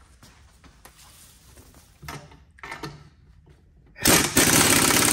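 An impact wrench hammers a nut or bolt tight in one loud burst of rapid blows, about a second long, near the end. Two shorter, quieter bursts come before it.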